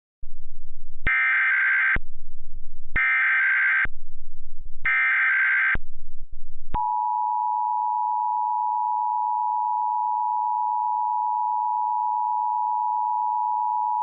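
Emergency Alert System header: three short bursts of SAME digital data tones, each just under a second, with a low hum in the gaps between them. About seven seconds in, the steady EAS two-tone attention signal (853 and 960 Hz together) starts and holds.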